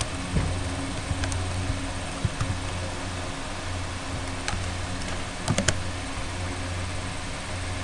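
Computer keyboard keystrokes, a few scattered clicks and then a quick run of three about five and a half seconds in, over a steady low hum and hiss.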